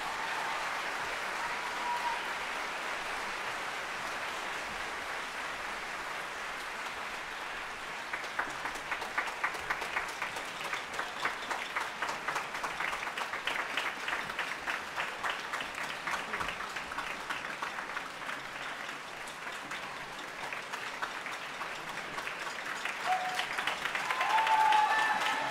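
Audience applauding with steady clapping, which grows denser about a third of the way in, and a few cheers near the end.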